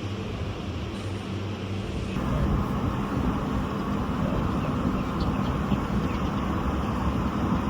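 Steady low mechanical rumble of a running vehicle, growing louder and fuller about two seconds in.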